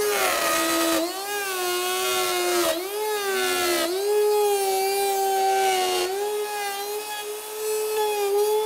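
Compact trim router running at full speed, its bearing-guided bit routing a through mortise in a wooden tabletop along a square template. The motor's whine dips in pitch and recovers several times as the bit cuts.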